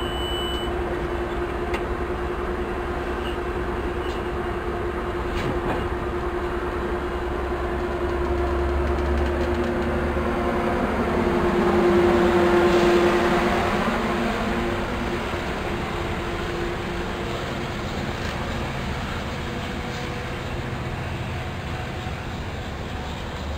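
Sounder commuter train of bilevel coaches pulling out of the station: a steady hum and rumble of wheels on rail that grows louder to a peak about halfway through as the cars pass, then fades as the train draws away. The high beeping of the door-closing warning ends in the first second.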